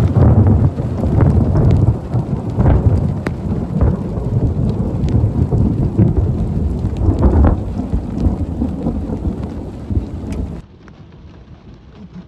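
Thunderstorm: heavy rain with thunder rumbling and sharp ticks of raindrops striking close by. About ten and a half seconds in it drops abruptly to fainter, duller rain.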